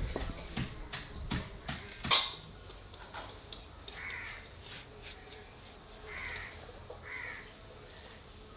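A wooden pestle knocks in a stone mortar over the first two seconds, the loudest knock about two seconds in. Then a crow caws three times.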